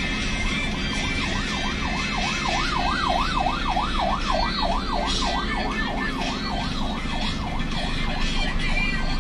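Ambulance siren sounding a fast yelp, its pitch sweeping up and down about three times a second. It comes in about a second in and fades a little toward the end, over the steady rumble of slow traffic.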